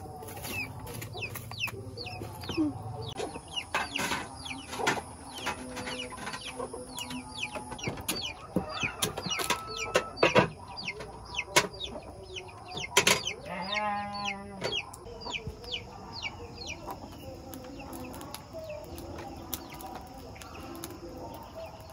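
Chickens clucking and chicks peeping in many short high chirps, with a longer crow-like call about fourteen seconds in.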